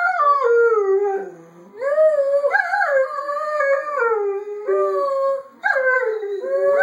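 Greyhound howling in long, wavering, sung notes, broken by short pauses about a second in and again after about five seconds.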